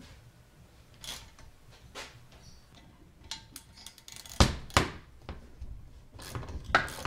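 Two-jaw gear puller cranked with a ratchet on a differential pinion bearing: faint clicks, then two sharp metal clanks about four and a half seconds in, followed by more clicking and knocking. The improvised puller is straining under the load and being pulled off at an angle, which the owner says is wrecking it.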